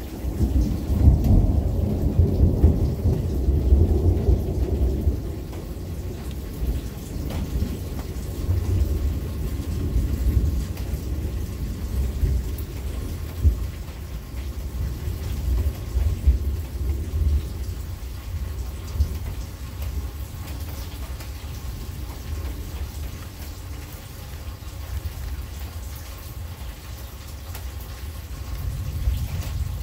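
Rolling thunder rumbling, loudest in the first few seconds, swelling again a few times and dying away, with a new rumble starting near the end. Steady rain falls throughout.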